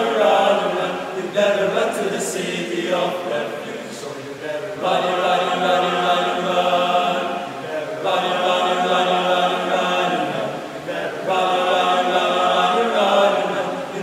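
Male vocal group of eight singing a cappella, in long held phrases that break every three or four seconds.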